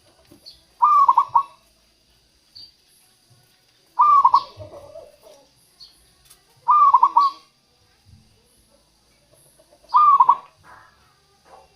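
Zebra dove (perkutut) cooing: a short phrase of quick cooing notes, repeated four times about every three seconds.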